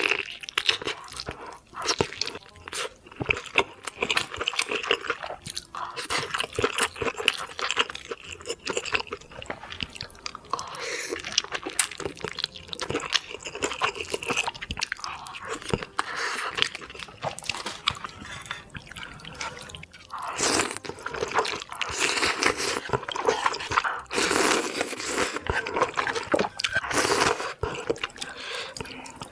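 Close-miked eating: steady chewing and crunching with wet mouth sounds and noodle slurping, a thick run of small clicks that swells in several louder stretches.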